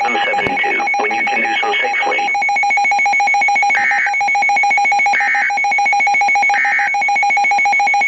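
Emergency Alert System end-of-message data bursts from a NOAA Weather Radio broadcast, heard through a small desktop computer speaker: three short, identical bursts of digital data about a second and a half apart, following the end of the spoken warning. A steady tone with a faint buzz runs underneath.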